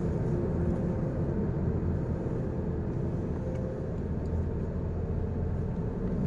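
Truck engine running at low speed, heard from inside the cab as a steady low rumble.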